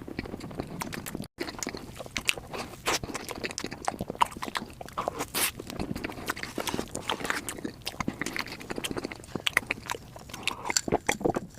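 Close-miked eating sounds: a person biting and chewing matcha desserts, with wet mouth clicks and smacks coming thick and irregular, and a brief break in the sound about a second in.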